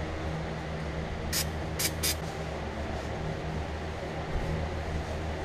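Three short hissing sprays from a spray can used to clean grime off a part, the first a little longer, the last two close together, over a steady low hum.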